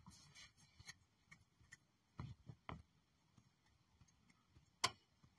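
Near silence with scattered faint ticks and clicks, and one sharper click near the end.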